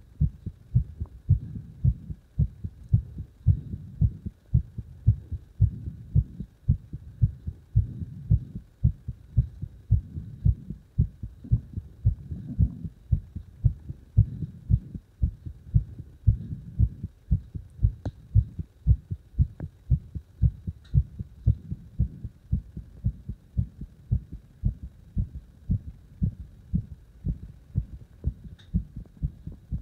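A strongly beating heart: a steady, regular rhythm of low, deep thumps.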